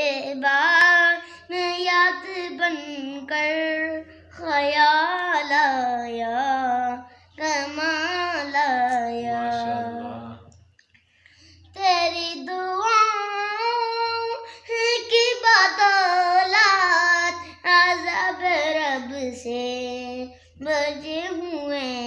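A young boy singing an Urdu naat unaccompanied in a high, clear voice, with long wavering held notes. He breaks off for about a second halfway through, then carries on.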